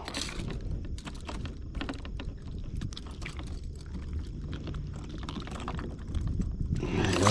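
Light, irregular clicking and rattling of small gear handled at the side of a kayak as a caught trout is being secured, over a low rumble.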